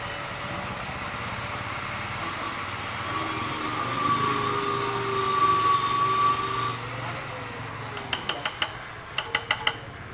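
Dongfeng single-cylinder diesel engine of a mini hand tractor running steadily under load, with a high whine that swells loudest in the middle. Near the end come two quick runs of four sharp metallic clacks.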